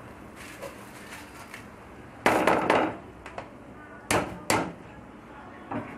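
Soaked, drained rice tipped from a plastic strainer into a frying pan of oil and onions: a rush of grains landing in the pan about two seconds in, then two sharp knocks about four seconds in as the strainer is tapped against the pan, and a lighter knock near the end.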